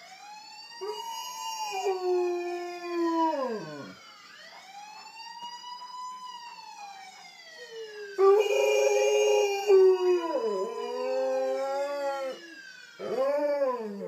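An Alaskan malamute howling along with a wailing siren. The siren sweeps slowly up and down while the dog's long, wavering howls rise and fall beneath it, loudest about eight seconds in.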